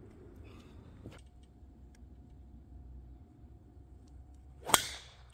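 A golf driver striking a ball off the tee: one sharp, loud crack near the end, over a faint low background hum.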